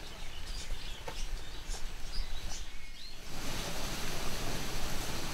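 Tropical forest ambience: a few faint bird chirps and small clicks, then a steady hiss of background noise that grows louder about three seconds in.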